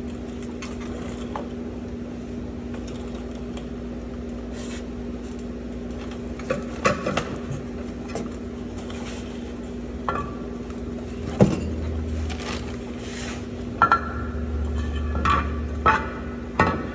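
Metal tools and brake parts clinking and clanking as they are handled, with a few sharper knocks in the second half, over a steady low hum.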